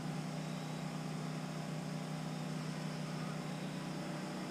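Steady drone of a generator running, an even hum that does not change.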